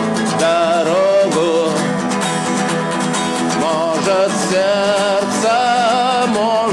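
A song sung to an acoustic guitar accompaniment, with long held notes that waver in pitch.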